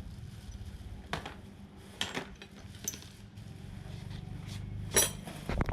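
Small metal engine parts and tools clinking and knocking against each other in a few separate sharp taps, the loudest near the end, over a steady low hum.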